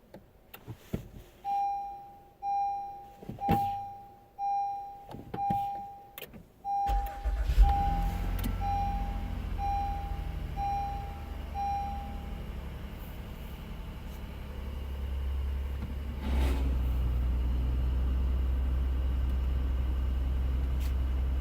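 A 2019 Honda Pilot's V6 being started. A dashboard chime repeats about once every 0.8 s. The engine cranks and catches about 7 seconds in and settles to a steady idle. About 16 seconds in, a brief grinding burst and a lasting rise in the running sound mark the A/C compressor clutch engaging, which the owner takes for the source of the grinding heard at start-up after the car has sat for a few cold days.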